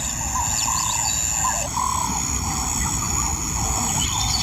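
Bush ambience: a steady high insect trill under a short rising-and-falling call near 1 kHz that repeats about twice a second, over a low rumble.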